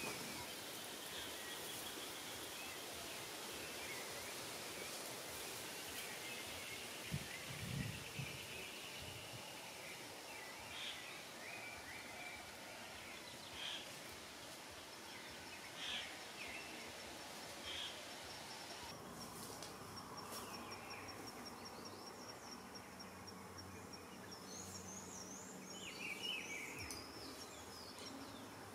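Forest ambience: a steady background of insects, with a fast high ticking in the second half, and short bird chirps every couple of seconds. A few soft low thumps about a quarter of the way through.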